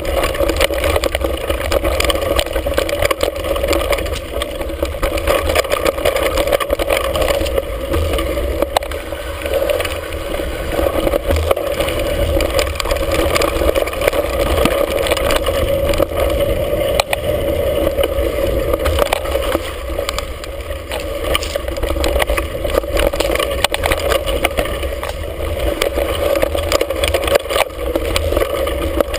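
Mountain bike descending a rough dirt singletrack, heard from a camera on the handlebars: a steady rumble of wind and tyres with many small rattles and knocks as the bike runs over bumps.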